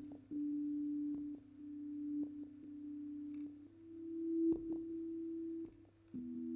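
Electronic sine-wave tones held at a low-mid pitch, stepping from one steady note to the next, sometimes two at once, with soft clicks where notes change. One tone swells up to a peak about two-thirds of the way through.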